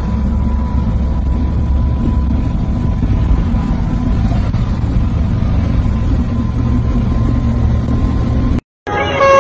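Steady low rumble of a truck's engine and tyres heard from inside the moving cab, with a thin steady tone above it. It cuts off suddenly near the end.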